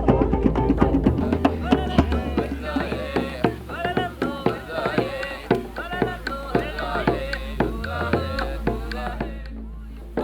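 Music: quick hand-drum strokes under a wavering melody, growing quieter toward the end.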